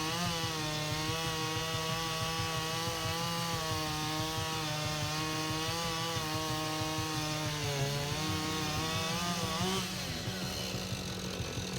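Chainsaw running at high speed while trimming the base of a cedar stump, its pitch wavering a little as it cuts. About ten seconds in the engine speed drops.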